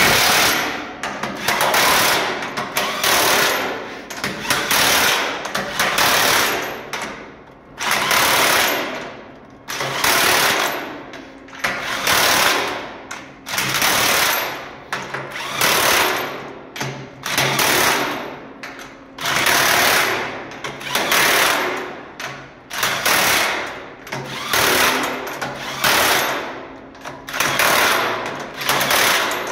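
Cordless impact wrench hammering in short bursts of about a second, one every couple of seconds, as it runs down and tightens nut after nut on the bolted steel manhole cover of a fresh water tank.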